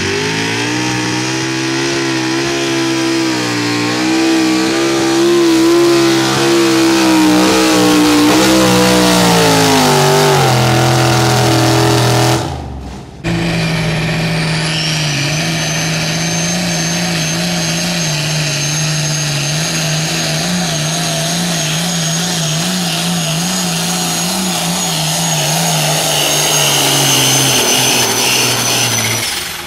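A pulling truck's engine running hard under load on the sled, its pitch wavering and then falling away after about ten seconds. After a brief break, a Limited Pro Stock diesel pulling tractor runs at full power with a steady engine note and a high, steady whine over it, easing off right at the end.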